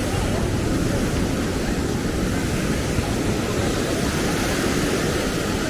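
A steady, even rush of outdoor noise with no distinct events.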